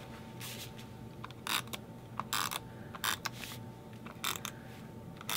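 Adhesive tape runner drawn across paper in short strokes, each a brief zipping rasp, about six of them roughly a second apart, with light handling of card stock in between.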